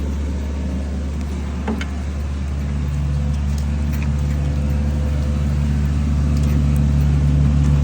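Backhoe engine running steadily with a low hum; about two and a half seconds in a second, higher tone joins and the sound grows a little louder, as if the engine is taking more throttle.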